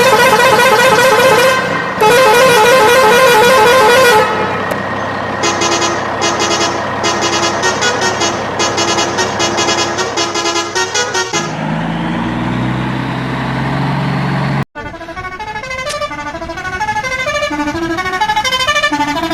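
A string of loud electronic sounds: a warbling horn-like tone for about four seconds, then a fast run of pulsing beeps, a low rising whir, and after a sudden break about fifteen seconds in, a bouncing tune of short beeping notes.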